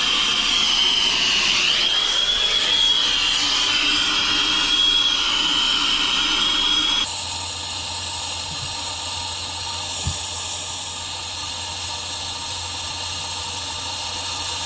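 B-tank air-acetylene brazing torch burning with a steady hiss, its flame lit for brazing a copper refrigerant line. About halfway through the sound cuts abruptly to a different steady hiss carrying a high, steady tone.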